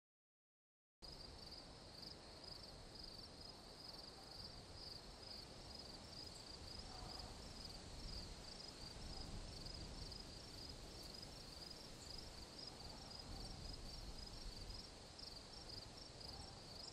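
Faint night ambience of crickets chirping in a steady pulsing rhythm over a low background rumble, coming in after a second of silence.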